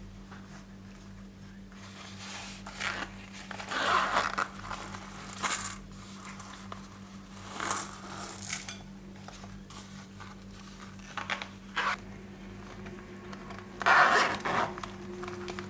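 Slime being handled, with short, crisp crackling squishes in irregular bursts over a steady low hum.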